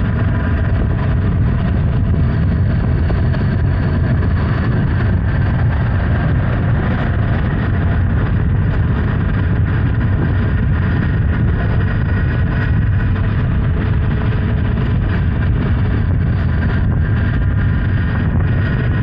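Honda Hornet 900's inline-four engine running steadily while the motorcycle cruises, with wind buffeting the microphone.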